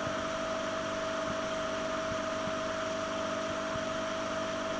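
Small 15 hp outboard motor running at a steady cruising speed, with a constant high whine over a steady rush of noise.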